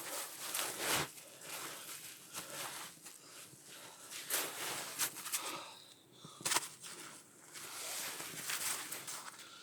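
Snow crunching and rustling in irregular strokes, as of feet and hands working in deep snow, with a few sharper crunches about halfway through.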